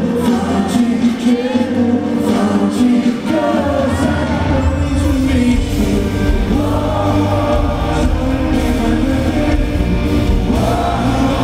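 Live pop song: a male singer sings into a handheld microphone over the band's backing, and a heavy bass comes in about three and a half seconds in.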